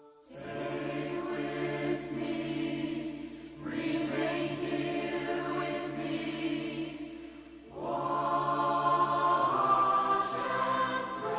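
Background music: a choir singing long held chords in three swelling phrases, the last one the loudest.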